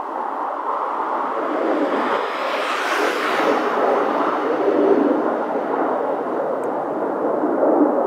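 Wind blowing across the microphone, a steady rushing noise with a stronger, hissier gust about three seconds in.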